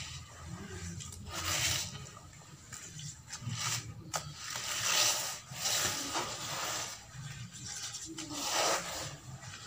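Hands squeezing and kneading wet, gritty sand-cement paste in a bowl, making wet squelching and crumbling sounds in repeated surges a second or two apart.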